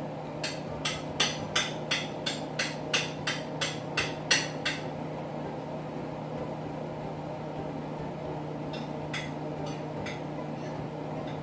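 A run of about a dozen sharp, evenly spaced knocks from kitchen work at the counter, roughly three a second, stopping about five seconds in, with a few fainter knocks near the end. A steady low hum runs underneath.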